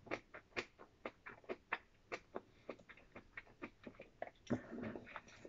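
Eating sounds close to the microphone: chewing and small mouth clicks, about three or four a second, with a short longer burst of noise about four and a half seconds in.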